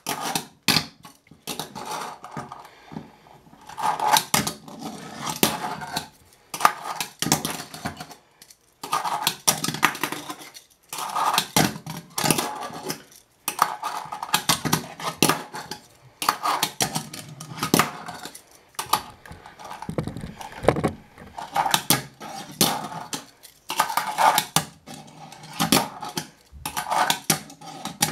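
A Tech Deck fingerboard clattering on a stone countertop and a plastic sign obstacle: the small wheels and deck clack and knock in irregular flurries as tricks are tried, with brief pauses between runs.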